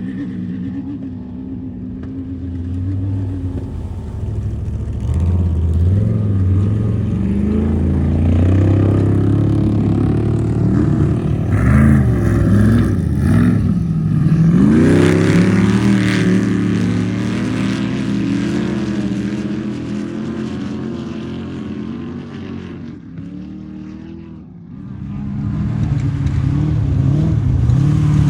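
Off-road race vehicle engines revving as they drive past, their pitch rising and falling. The loudest pass comes about halfway through. The sound dips about three-quarters through, then another vehicle comes in loud near the end.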